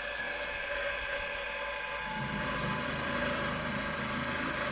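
Milling machine spindle running with a steady whine. About two seconds in, a rough low buzz joins as the drill bit is fed into the metal plate to spot the last hole.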